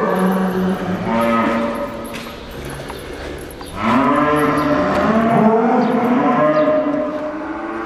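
Limousin cattle mooing: long, drawn-out calls from several cows, overlapping. The loudest stretch starts about four seconds in.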